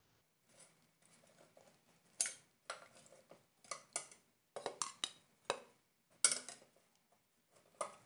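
Metal tongs clinking and scraping against the inside of a metal pressure cooker as pieces of boiled mutton are lifted out of the broth: a dozen or so irregular sharp clinks.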